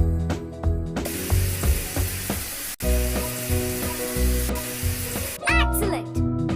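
Background music with a loud steady hiss laid over it from about a second in until about five and a half seconds, briefly cut off midway, then a short swooping, warbling tone.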